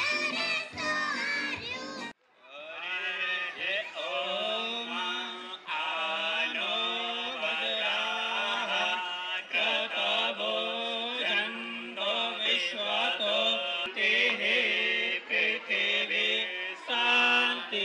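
A group of children singing together on stage to a keyboard, cut off abruptly about two seconds in; after a brief gap, a different song with singing carries on.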